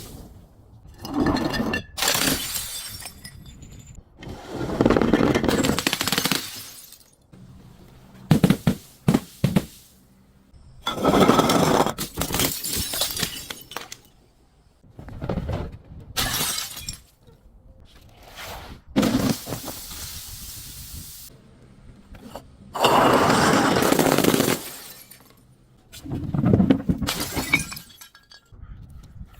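Glass bottles being crushed and shattering, in a series of crunching, crackling bursts every two to three seconds, some with sharp cracks.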